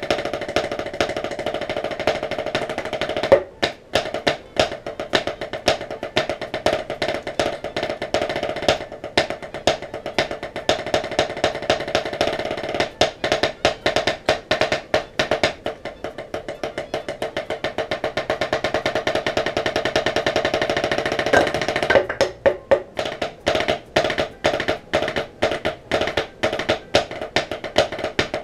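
Drumsticks played on a rubber drum practice pad: fast rolls alternating with passages of sharp, separated accented strokes in a rudimental drum-battle solo.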